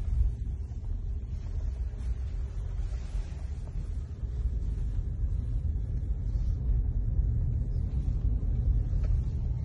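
Low, steady rumble of engine and road noise inside the cabin of a moving car.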